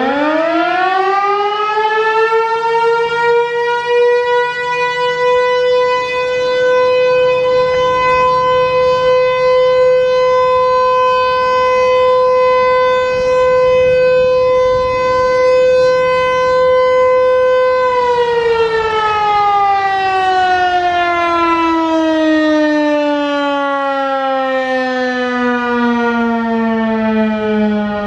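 American Signal T-128 outdoor warning siren sounding its weekly short-alert test. It winds up to one steady tone in the first few seconds and holds it for about fifteen seconds, then winds down, the pitch sliding slowly lower to the end.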